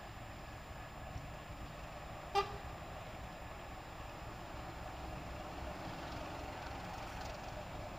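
Distant class 751 diesel locomotive running as it approaches, a low engine rumble growing slightly louder. About two and a half seconds in, a single short, high horn toot.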